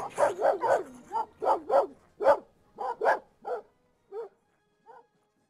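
A dog barking, about a dozen barks in a quick run at first, then spacing out and growing fainter until they stop about five seconds in.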